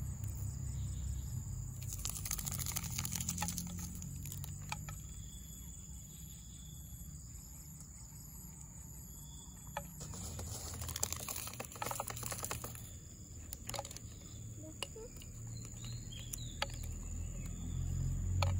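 Green leucaena (petai belalang) pods being split open by hand: two stretches of crackling and clicking as the pods tear, with single sharp clicks between them as the small seeds drop onto a plastic plate.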